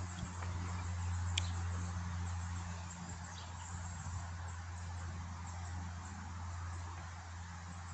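Steady low hum under an even background hiss, with one small click about a second and a half in.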